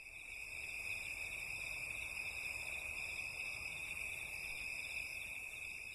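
Chorus of night insects: a steady, high-pitched trilling that fades in at the start.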